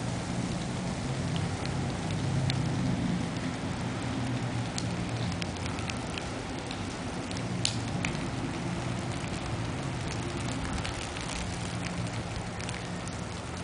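Wet snow falling and pattering onto pavement, roofs and leaves: a steady hiss with many small ticks of drops, over a steady low rumble.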